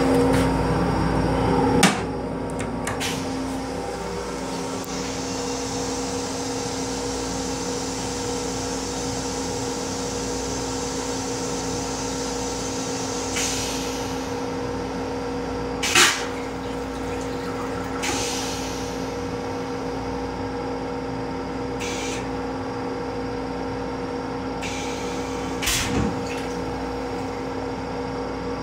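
Railcar restroom toilet flushing: a loud rush ending in a sharp clunk about two seconds in, then a long hiss lasting several seconds, over a steady hum. A few more sharp clunks come later.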